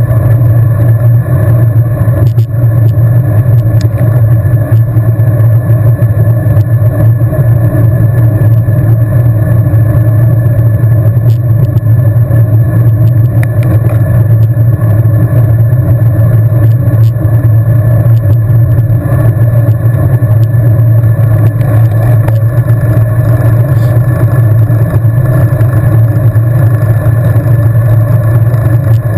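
Loud, steady rumble of wind and road noise on the microphone of a camera riding along on a racing bicycle at speed.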